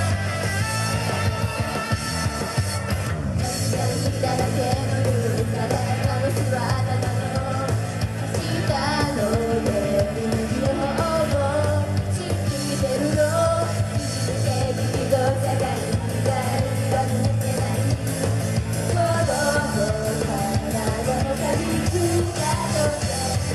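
Live idol-pop song in a rock style: group vocals sung over a loud backing with guitar and a steady bass, the singing coming in a few seconds in.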